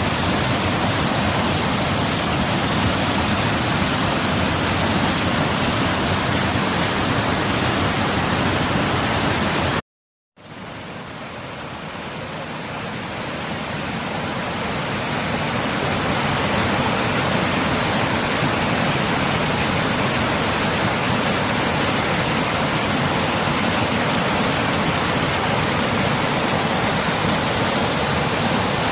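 Steady rush of water from a rocky mountain stream cascading over boulders. It cuts out briefly about ten seconds in, then fades back up over several seconds.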